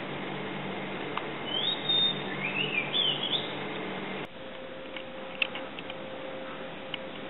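A bird calling outdoors in a few quick chirps that sweep up and down in pitch, over a steady outdoor hiss. About four seconds in the sound cuts abruptly to a quieter indoor one: a faint steady hum with a few light clicks.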